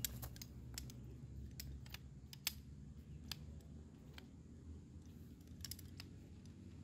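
Shock-corded aluminium poles of a folding camp chair frame clicking as the sections snap together and knock against one another: a series of irregular sharp clicks, the loudest about two and a half seconds in.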